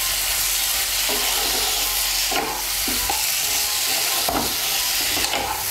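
Potato pieces and soya chunks sizzling in mustard oil and spice paste in a frying pan while being stirred, a steady sizzle with a few scrapes of the spatula against the pan. The mix is being sautéed with the masala.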